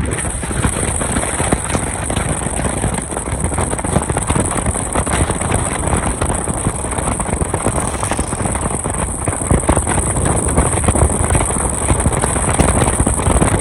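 Car driving, with loud, steady road and wind noise; it cuts off suddenly near the end.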